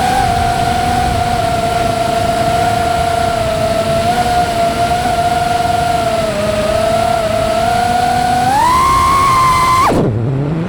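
FPV drone's brushless motors whining at a steady pitch. The whine rises near the end, then drops sharply and climbs back within about a second as the throttle is chopped and punched.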